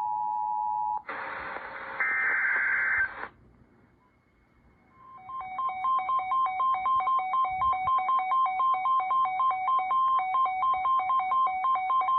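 Emergency Alert System alert tones received on FM radio. A steady two-tone note lasts about a second, then comes a burst of harsh noise to about three seconds in. After a short pause an electronic warble alternating between two pitches runs for about seven seconds and cuts off suddenly.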